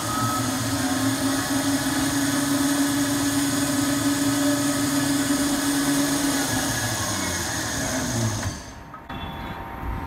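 Coil winding machine (Maxima S-Plus S2120) winding copper wire onto a cooler pump coil bobbin, its spindle motor running steadily with a constant tone. About seven seconds in the pitch falls as the spindle slows, and it stops about eight and a half seconds in as the programmed coil finishes.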